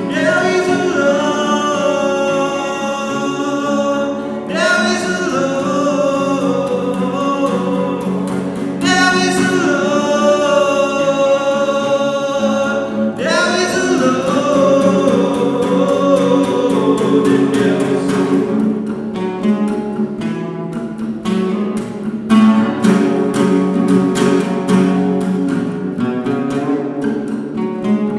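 A singer performing an original acoustic song over a strummed acoustic guitar, inside a steel grain bin. Four sung lines of about four seconds each come first, and the guitar strums on alone for most of the last ten seconds.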